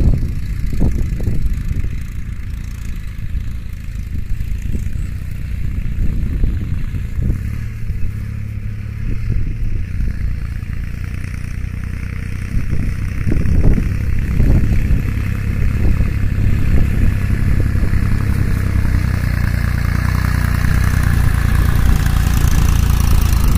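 Sonalika mini tractor's diesel engine running steadily while it pulls a nine-tine cultivator through the soil, growing louder over the last few seconds.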